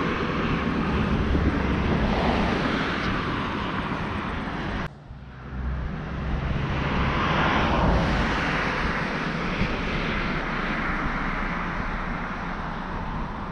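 Steady rushing noise of a passing vehicle. It drops out abruptly for a moment about five seconds in, then swells again around eight seconds and slowly fades.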